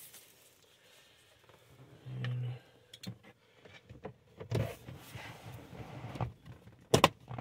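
Plastic interior kick panel being pushed back into the passenger footwell of a Dodge Dart: handling rustle and a few sharp clicks and knocks as its clips seat, the loudest snap near the end. A brief low hum about two seconds in.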